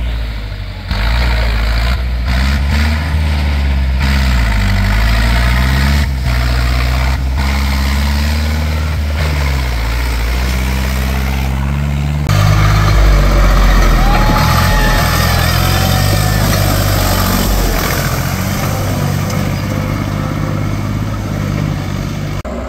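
Tractor diesel engine running under load, its pitch rising and falling as it revs through deep mud.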